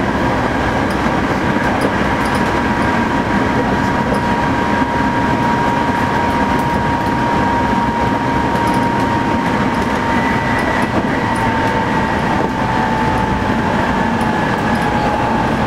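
Hankyu 8000 series electric train running at speed, heard from inside the car: a steady rumble of wheels on rail under a thin high whine, which slowly drops in pitch over the second half.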